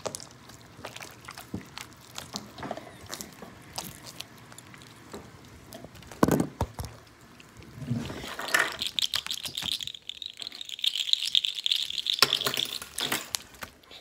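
Jelly-cube slime squeezed and pressed by hand, giving wet squelches and sticky clicks. About ten seconds in comes a dense run of fine crackling.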